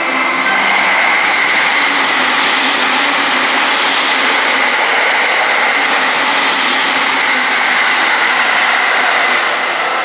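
A train passing close by: loud, steady running noise of wheels on rail with a thin high whine held throughout, easing off near the end.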